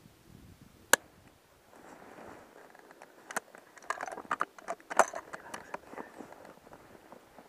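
Handling noise close to the microphone: one sharp click about a second in, then a run of small clicks and rustling between about three and six seconds in.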